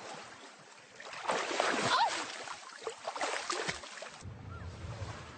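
Sea water splashing and churning in irregular surges, as of someone struggling in the waves. About four seconds in this cuts off and low music begins.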